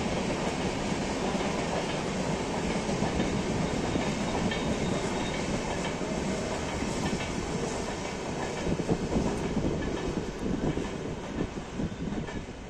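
Sangamitra Superfast Express passenger train rolling along the track, a steady rolling noise with faint clicks of the wheels over rail joints. It eases off a little near the end as the train draws away.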